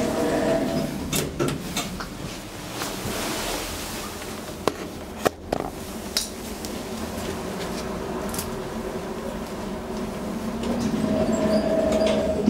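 Hydraulic elevator with its car doors standing open, a few sharp clicks and knocks scattered through the middle, then the door operator's motor humming as the doors start to slide shut near the end.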